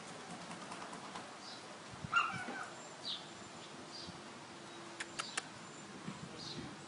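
Quiet outdoor background with scattered short, high bird chirps. A brief high squeak about two seconds in is the loudest sound, and a few sharp clicks follow around five seconds.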